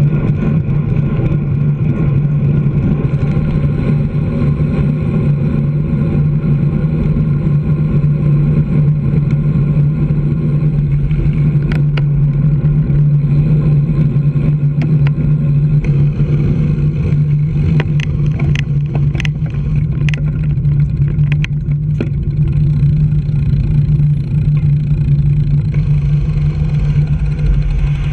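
Steady, loud drone of a tipper truck's diesel engine, heard from a bicycle riding close behind it, mixed with wind and road rumble on the bike-mounted action camera. Several sharp clicks or knocks sound in the second half.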